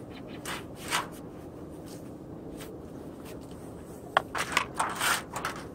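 Rustling and light scraping as gloved hands handle newspaper and small gear spread on concrete. There are a few single rustles in the first second or so, then a quick cluster of them between about four and five and a half seconds in.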